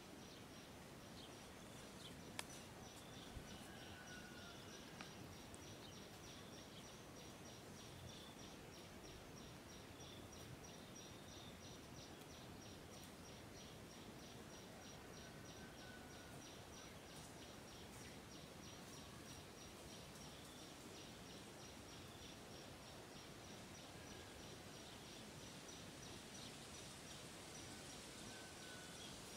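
Near silence: faint outdoor ambience with a steady, fast-pulsing high-pitched insect trill throughout and a few short, soft bird chirps. There are a few faint clicks in the first five seconds.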